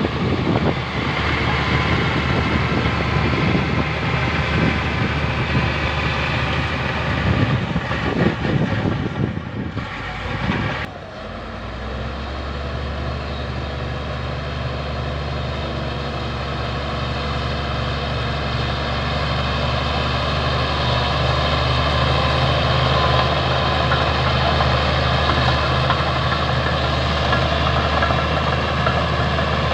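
Heavy diesel engine of construction equipment running: rough and noisy at first, then about ten seconds in it changes suddenly to a steady low engine hum that slowly grows louder.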